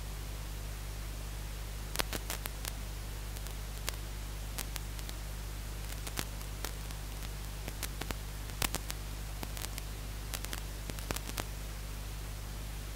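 Steady static hiss with a low hum underneath, broken by scattered sharp crackling clicks.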